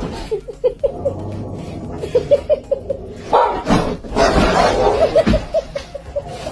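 A person laughing in three runs of short ha-ha pulses that fade away, with a dog's loud bark about three and a half seconds in.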